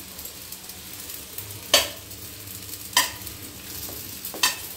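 Oil sizzling faintly in a kadhai while stuffed bitter gourds are lifted out with a metal utensil, which clinks sharply three times, roughly a second and a quarter apart.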